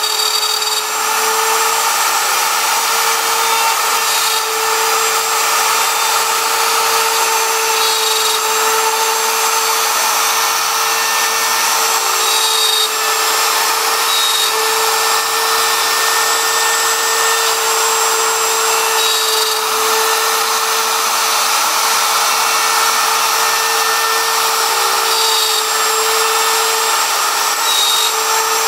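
CNC router spindle running and its bit cutting wood: a steady whine over the continuous noise of the cut.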